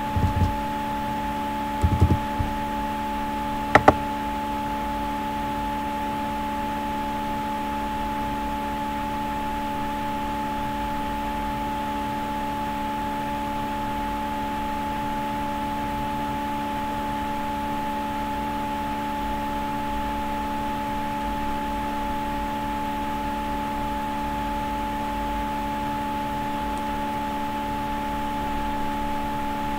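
Steady machine hum made of several held tones over a faint hiss, with a soft thump about two seconds in and a sharp click near four seconds.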